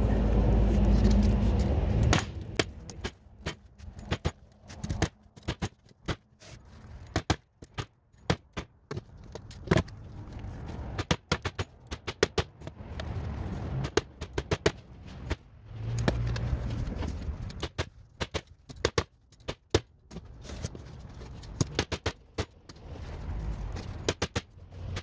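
Hand staple gun firing staples one after another, fastening mat material to a wooden board: many sharp metal snaps in irregular clusters, with a low rumble in the first two seconds and briefly again around the middle.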